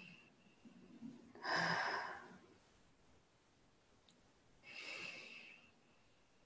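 A woman breathing audibly: two slow breaths without words, the first, about one and a half seconds in, the louder.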